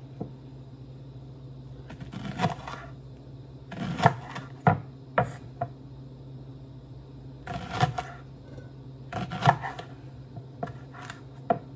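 Chef's knife slicing a leek into rings and tapping a wooden cutting board, in short runs of quick cuts with pauses between, over a steady low hum.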